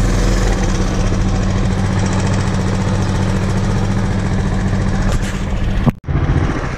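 Small single-cylinder mini bike engine running steadily. The sound cuts out abruptly for an instant about six seconds in, then resumes.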